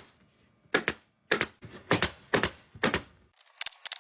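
Upholstery tool work on a pontoon seat cover: about five sharp snaps roughly half a second apart, then a quicker run of lighter clicks near the end.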